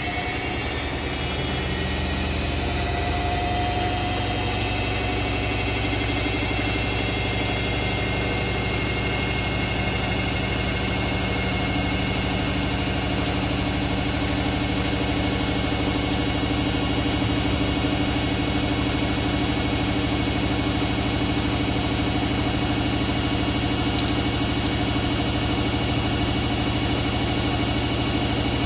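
Hoover A3308 Computer Control 1100 washing machine spinning its drum in the final spin: the motor's whine rises in pitch over the first few seconds, then holds at a steady speed over a constant hum.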